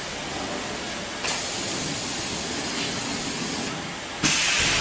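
Large-power ultrasonic welding machine running with a steady, high hiss. The hiss steps louder about a second in and again near the end.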